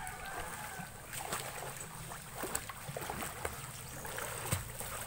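River water splashing and lapping around swimmers, with many small scattered splashes.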